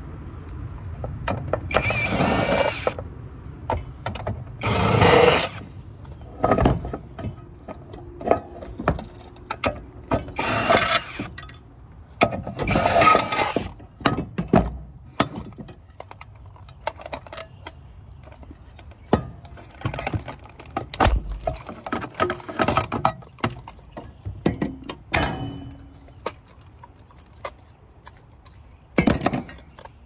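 Hand-tool work on metal antenna parts: irregular clanks, clicks and knocks, with several harsh rasping bursts about a second long.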